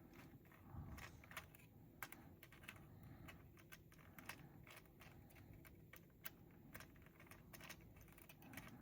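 Faint, irregular small clicks and taps of hands and a small screwdriver working on a scale model's panel and screws, a few clicks a second.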